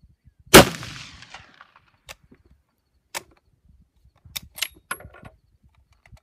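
A single shot from a Lee Enfield .303 bolt-action rifle about half a second in, its report trailing off over a second or so. A few sharp metallic clicks follow, with a cluster of clacks and a brief ring a little over four seconds in, as the rifle is handled and its bolt worked.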